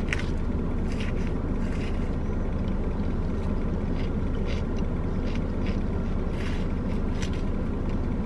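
Steady low rumble of an idling car, heard from inside the cabin, with a few faint clicks of a plastic spoon against a plastic cup.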